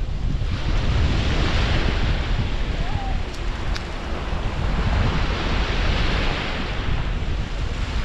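Small sea waves breaking and washing up a sandy shore, the surf swelling twice, with heavy wind rumble on the microphone.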